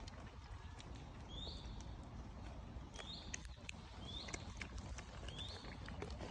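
Four short high chirps, each a quick upward slide held for a moment, about a second apart, over scattered faint clicks and a low background rumble.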